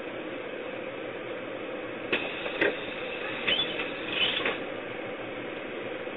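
Steady hum and hiss inside a bus, picked up by its security-camera microphone, with a few short mechanical clicks and rattles about two to four and a half seconds in.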